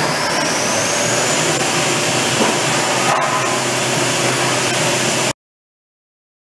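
Haas TM-2 CNC tool room mill running: a steady rushing machine noise with a high whine that rises over about a second and a half and then holds steady. It cuts off suddenly about five seconds in.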